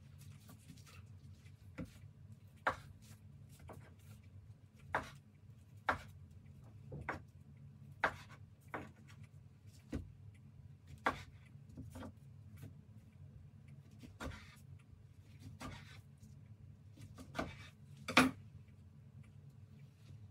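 Knife blade knocking on a plastic cutting board while slicing a sushi roll into pieces: about a dozen separate taps at uneven intervals, the loudest near the end.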